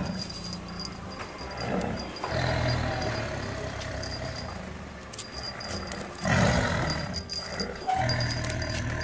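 Several roars for a barongan creature character: a long one about two seconds in and shorter ones near the end, over background music.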